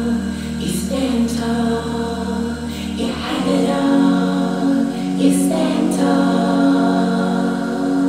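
Choral vocal music with long held chords, played back through open-baffle full-range speakers driven by a 6BM8 triode tube amplifier and heard in the room. A low bass note drops out about three seconds in.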